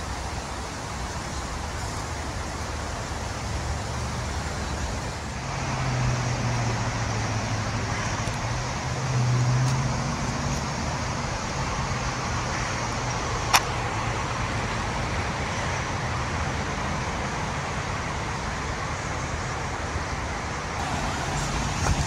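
Steady rumble of road traffic, with a low engine hum swelling about a quarter of the way in and a single sharp click about two-thirds through.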